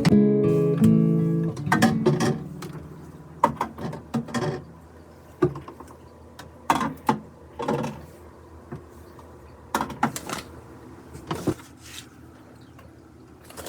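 Acoustic guitar background music that fades out about two seconds in, followed by a string of short, separate knocks and clatters of small objects being handled and set down.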